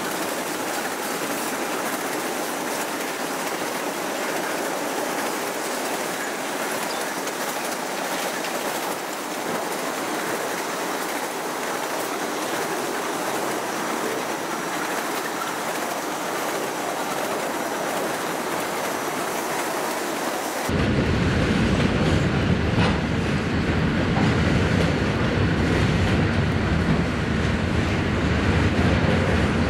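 Freight train cars rolling past on the rails in a steady, unbroken run. About two-thirds of the way through the sound abruptly becomes louder and lower, with the high end cut off.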